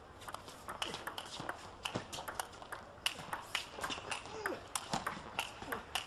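Table tennis rally: the ball clicking sharply off bats and table in quick, irregular succession.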